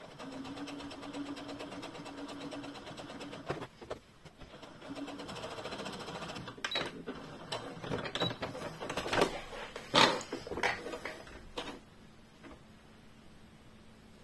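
Brother Innov-is 27 electronic sewing machine sewing a long straight topstitch with a steady motor hum and rapid needle patter. It stops about three and a half seconds in and runs again briefly. Then come a series of sharp clicks and knocks as the machine's buttons are pressed and the fabric is handled.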